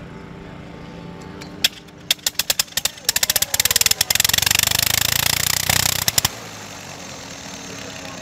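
Clerget 9B nine-cylinder rotary aircraft engine being hand-propped into life: it catches with a sharp bang about a second and a half in, then fires in a few ragged pops. It runs with rapid, crackling firing for about three seconds before cutting off abruptly.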